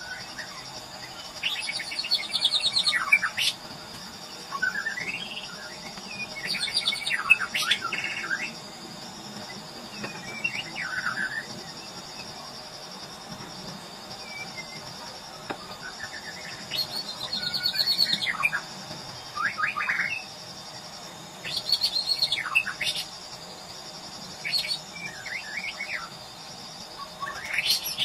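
White-rumped shama singing: short phrases of rich whistles and quick trills, a new phrase every two to three seconds, over a steady high insect drone.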